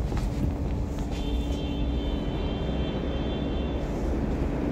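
Steady low rumble of a subway station, with a constant hum and a faint high-pitched whine that comes in about a second in and fades out near the end.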